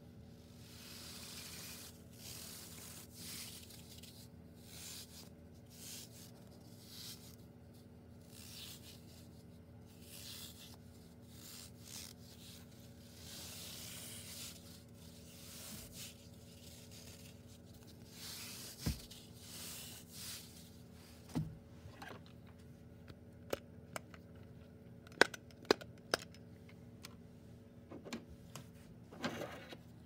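Hands squeezing and rubbing a squishy banana fidget toy: repeated soft swishing and rubbing noises. In the last third, a run of sharp clicks and taps.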